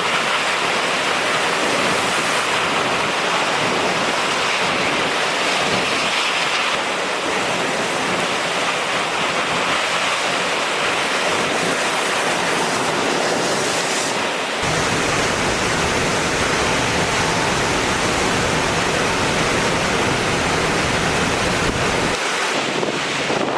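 Loud, steady rush of tropical-storm wind and water. From about halfway in until near the end, wind buffets the microphone with a heavy low rumble.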